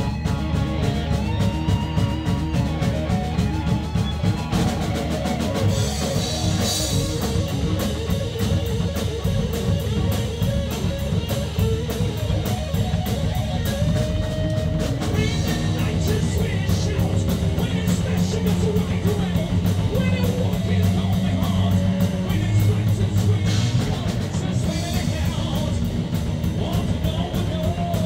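Heavy rock band playing live: distorted electric guitar, bass guitar and a drum kit with constant cymbal strikes.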